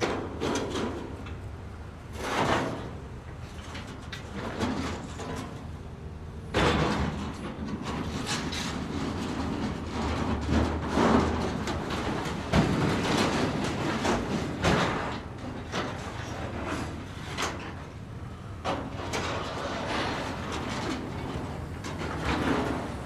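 Construction site ambience: a steady low machinery rumble with scattered knocks and metallic clanks, growing louder and busier about six and a half seconds in.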